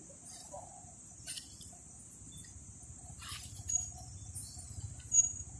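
Steady high-pitched insect drone, with a few faint rustles and one sharp click about five seconds in.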